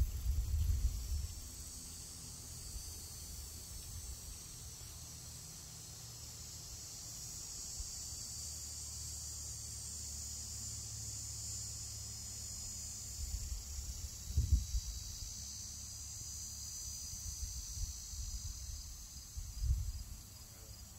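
Steady, high-pitched chorus of insects droning without a break, with a few low rumbles of wind on the microphone at the start, about two-thirds through and near the end.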